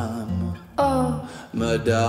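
Acoustic music: two acoustic guitars playing, with a voice singing sliding, held notes that carry no recognisable words.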